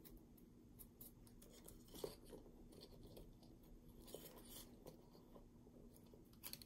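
Near silence with faint, scattered small clicks and brief rustles: hands fitting wooden craft sticks into plastic zip ties on a cork and moving a paper cut-out, over a faint steady hum.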